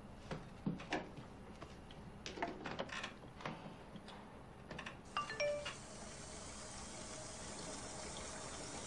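Soft knocks and clicks as someone climbs onto a stationary exercise bike. About five seconds in comes a short stepped chime, a phone message notification, followed by a faint steady hiss.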